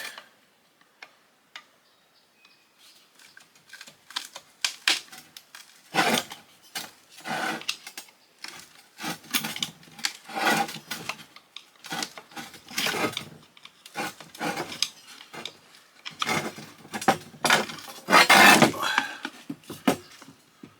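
Hand tools knocking, clinking and scraping against the metal and plastic housing of a Badger half-horsepower garbage disposal as it is taken apart. The irregular clatter is sparse at first and busier from about six seconds in, loudest near the end.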